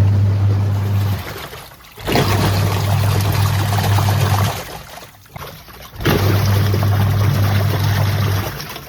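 Whirlpool semi-automatic washing machine running its wash cycle. The motor hums in runs of about two and a half seconds, with short pauses between, as the pulsator churns and sloshes the water in the tub.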